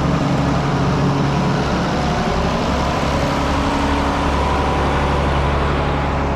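A heavy engine running steadily at an even speed, a continuous low hum with no changes in pitch or load.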